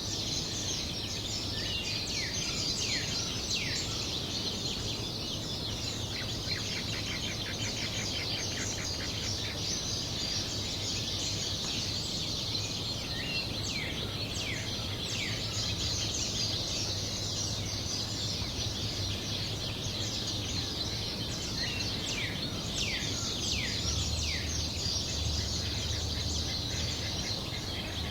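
Dawn chorus of many small birds chirping and singing at once, with short falling calls and quick trills, over a steady low background hum of ambient noise.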